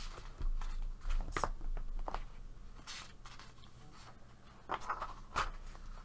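Paper pages of a paperback coloring book being handled and pressed flat by hand, a string of short rustles and light scrapes. The loudest come near the start, in the middle and again near the end.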